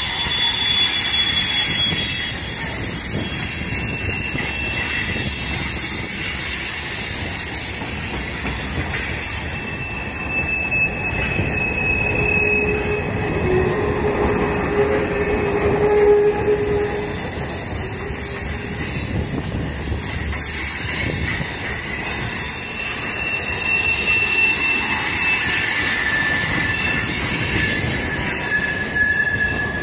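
Freight cars (covered hoppers, tank cars, flatcars) rolling past close by, their wheels making a steady rumble on the rails. Thin high-pitched wheel squeals come and go throughout, with a louder, lower squeal about halfway through.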